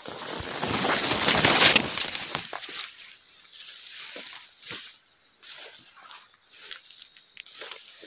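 Tall grass rustling and brushing against the phone as it pushes through a dense clump, loud for the first two seconds or so. After that, lighter scattered crackles of dry grass stems being parted and stepped on.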